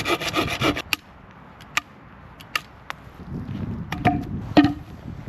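Bark being stripped from a cut dead log: a fast run of scraping strokes for about the first second, then several sharp wooden knocks and taps.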